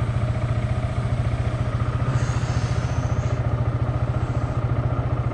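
Motor scooter engine idling steadily, with an even, rapid putter.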